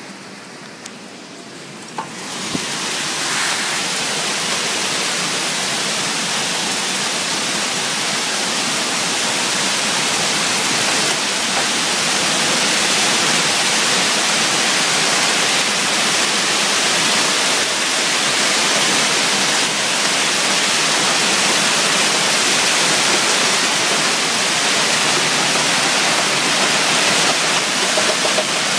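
A heavy hailstorm: dense hail pelting pavement and parked cars in a steady, loud hiss. It is muffled behind a glass door at first, then much louder from about two seconds in, once the door opens onto it.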